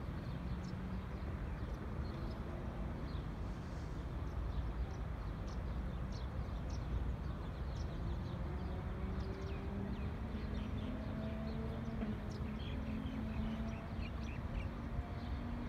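Outdoor city ambience: a steady low rumble with small birds chirping in short, scattered calls. From about eight seconds in, a faint engine hum drones beneath it.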